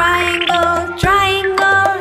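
Children's background music: a melody of held notes that changes pitch every half second or so, over a steady low beat.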